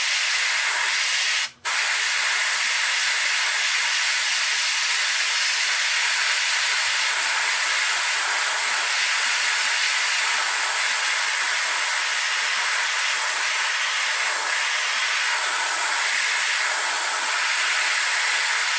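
Small compressed-air paint sprayer spraying thinned black paint in a steady hiss, broken once by a brief stop about a second and a half in.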